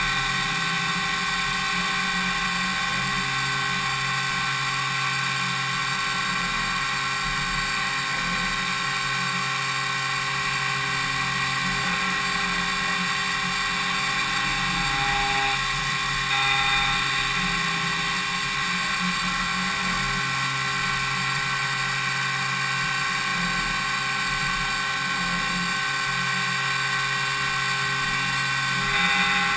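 Five-axis DMU 70V machining centre milling an impeller blade: a high-speed spindle whine with cutting noise, steady, briefly louder about halfway.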